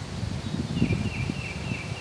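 Wind rumbling and rustling on the microphone, with a bird's quick series of short, high repeated notes starting a little under a second in.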